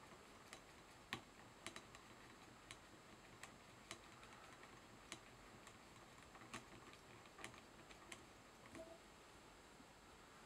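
Near silence broken by scattered faint, irregular clicks: hands handling the hook, thread and materials at a fly-tying vise.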